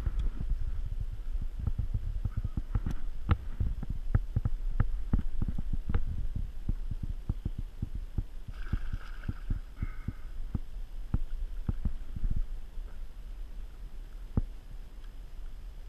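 Irregular clicks and knocks over a steady low rumble: handling noise from the fly rod, reel and line against a body-worn camera while a fish is being played. A short higher-pitched buzz comes about halfway through.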